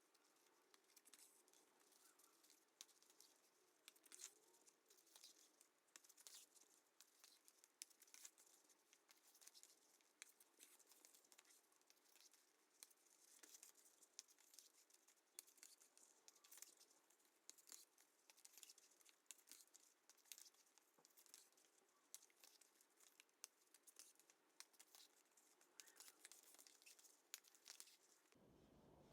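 Faint, irregular small clicks and rustles of hands handling craft materials, plausibly a cord being pulled through holes in a bag kit's panels. A low hum comes in near the end.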